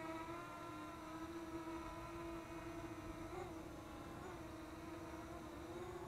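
Parrot Anafi quadcopter hovering, its propellers giving a steady, fairly quiet whine with brief wobbles in pitch a little past three and four seconds in.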